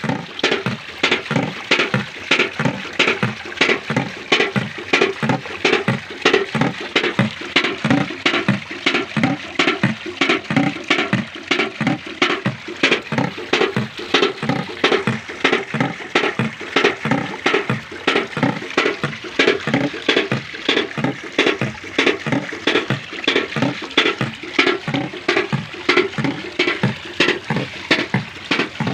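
Homemade water-wheel bird and otter scarer made from used tin cans, turning in running water and clanking the cans in a steady rhythm of ringing metallic strikes, a few a second, over the rush of water.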